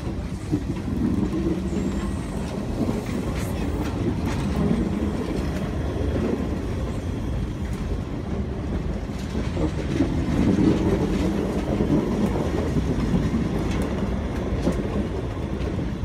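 Railway passenger coaches rolling past close by: a steady low rumble of wheels on the rails, with scattered clicks as the wheels cross rail joints.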